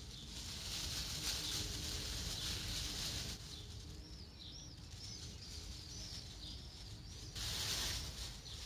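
Plastic oven bag crinkling and rustling as it is handled, in two stretches: one for the first few seconds and a shorter one near the end. Between them, birds chirp in a run of short, high, repeated calls.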